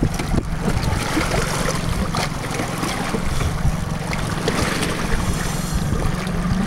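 Boat engine idling with a steady low hum, under wind noise on the microphone. Near the end the engine's pitch rises as it speeds up.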